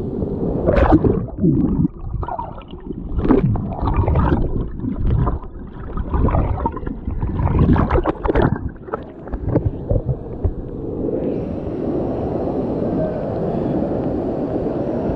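Fast stream water splashing and gurgling over the camera in irregular surges as it rides through white water. About eleven seconds in, this gives way to the steady, even rush of a waterfall.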